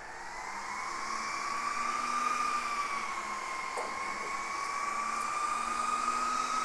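Cooling fans of a Cisco Catalyst 9300 network switch spinning up as the switch powers on through a StackPower cable, with no power supply of its own: a whine that rises in pitch at the start, then holds high and steady over a rush of air.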